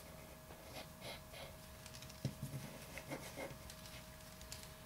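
Faint scratching of a mechanical pencil sketching on paper, in short strokes, with one sharp click a little over two seconds in, over a steady faint hum.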